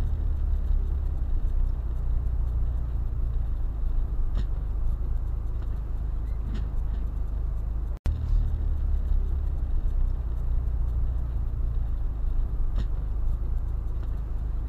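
Steady low rumble of road and engine noise heard inside a car cruising on a motorway, with a few faint ticks and a very brief drop-out about halfway through.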